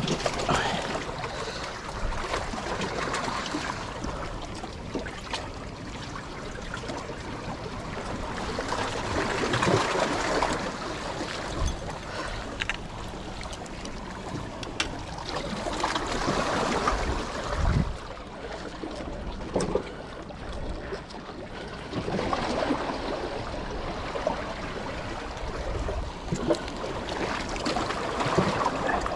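Small waves washing in on the shore, a noisy rush that swells and fades about every six seconds, with a few short knocks between.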